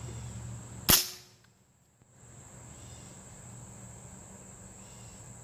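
A single shot from a Benjamin Bulldog big-bore air rifle about a second in: one sharp crack firing a nail-tipped hollow-point slug at a steel plate. Crickets chirp faintly afterwards.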